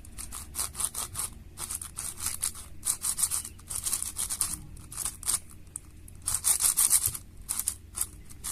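XMD Spark M 7x7 speedcube being turned by hand for the first time, layers scraping and clicking in quick, irregular turns; the turning is slow and a bit sandy.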